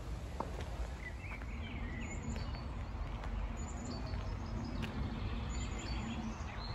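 Outdoor city ambience: a steady background hum with small birds chirping, several short calls through the middle.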